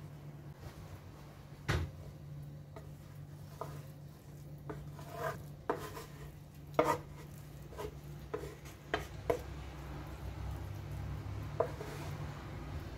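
A serving spoon scraping and knocking against a non-stick frying pan while bulgur pilaf is spooned out onto a glass plate: about a dozen irregular clinks and taps, over a low steady hum.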